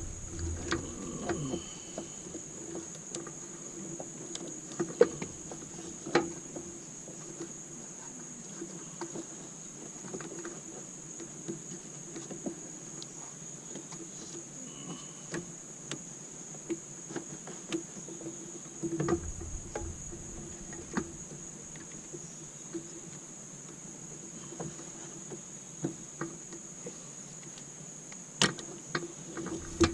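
Scattered light clicks and clinks of hand tools and engine parts being worked loose during intake plenum removal, with a duller thud about two-thirds of the way through, over a steady high-pitched tone.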